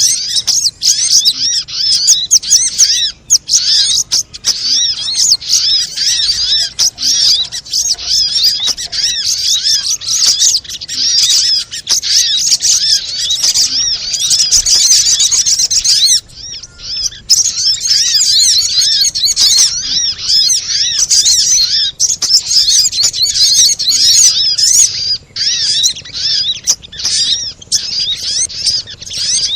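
Little spiderhunter (sogok ontong) calling non-stop: a dense, rapid stream of sharp high chirps with a brief break about halfway through.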